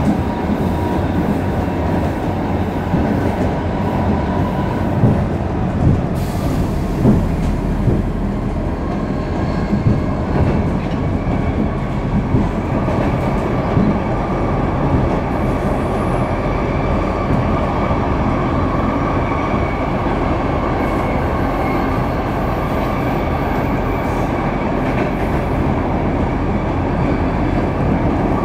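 Inside a Stockholm Metro C6 train car running at speed: the steady rumble of wheels on rails, with a few knocks over the rail joints in the first ten seconds. After that the ride turns steadier, with a faint high whine.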